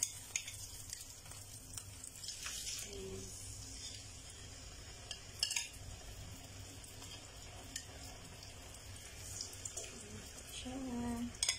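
Kingfish slices shallow-frying in a little hot oil in a frying pan: a steady soft sizzle, with a few sharp clicks of a utensil against the pan.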